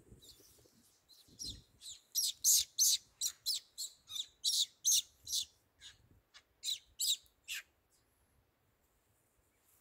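A bird calling a quick series of about twenty short, high chirps, roughly three a second, then falling silent.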